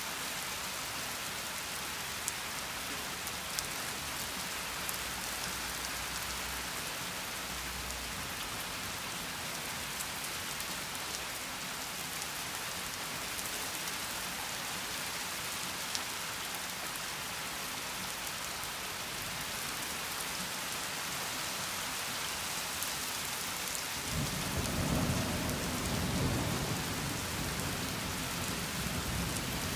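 Steady rain hissing, with a few sharp ticks of drops close by. About 24 seconds in, a low rumble of thunder rolls in and swells in waves.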